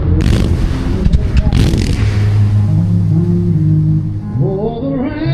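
Fireworks bursting twice with crackle in the first two seconds, over music. The music then holds low sustained notes, and a rising glide comes near the end.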